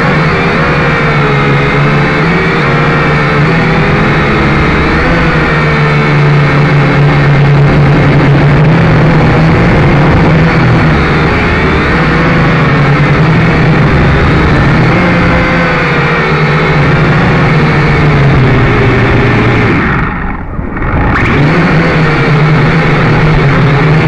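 Syma X5C quadcopter's small electric motors and propellers whining loudly. The pitch wavers up and down as the throttle changes, and the sound briefly drops away about twenty seconds in.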